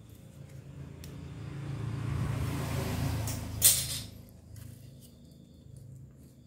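A rushing noise swells over about three seconds and ends in a single sharp clack, the loudest sound here, about three and a half seconds in; a low steady hum runs underneath.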